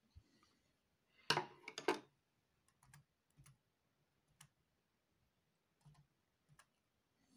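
Keys being pressed on a Dell Latitude E5410 laptop keyboard while a product key is entered: a quick run of louder clicks about a second in, then single key presses about a second apart.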